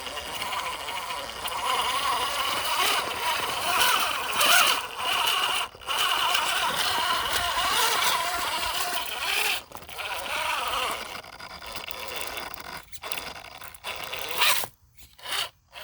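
MN82 RC crawler's brushless motor and gearbox whining, the pitch wavering with the throttle as it crawls over rock, with tires scrabbling. The motor cuts out briefly twice near the end.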